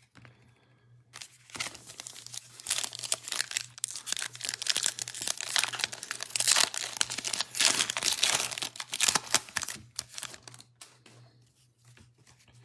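Foil wrapper of a 2021 Illusions football card pack being torn open and crinkled by hand: dense, irregular crackling that starts about a second and a half in and dies down near ten seconds.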